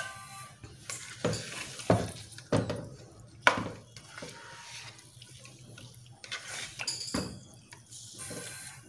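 Chicken pieces sizzling in hot oil in a frying pan while a silicone spatula stirs and turns them, with a few sharp knocks and scrapes against the pan, the loudest about three and a half seconds in.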